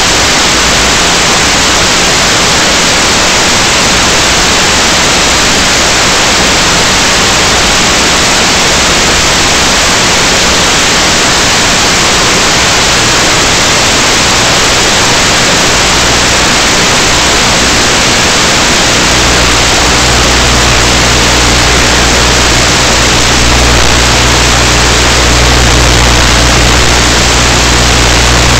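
Loud, steady static hiss from the analog FPV link, recorded by the EV800D goggles' receiver. A low hum joins it about two-thirds of the way through.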